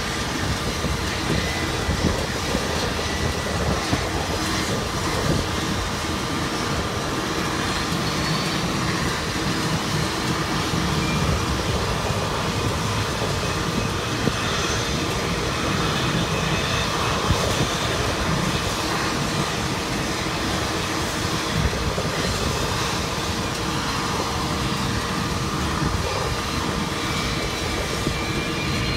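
Steady roar of jet aircraft engines and ramp equipment across an airport apron, with constant whining tones over a low rumble. A faint rising whine comes in near the end.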